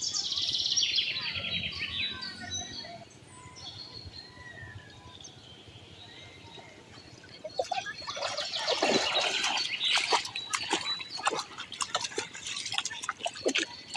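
A bird trills rapidly at first. From about halfway, water splashes and sloshes in a run of quick irregular strokes as a bamboo-framed hand net is hauled up out of shallow river water.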